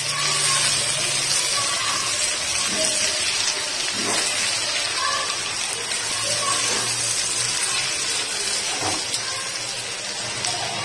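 Onions, diced potatoes and chopped tomatoes sizzling in oil in a frying pan while being stirred with a silicone spatula: a steady hiss with a couple of faint clicks.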